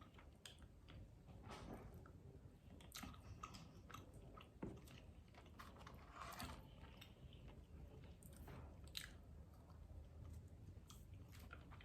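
Faint close-up chewing of a chicken nugget dipped in Cajun sauce, with small irregular mouth clicks.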